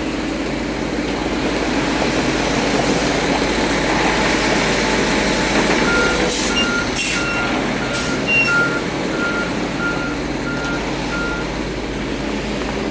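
Ready-mix concrete truck running steadily while reversing into place. From about six seconds in, its backup alarm gives about nine evenly spaced beeps. A few short bursts of air hiss sound around the same time.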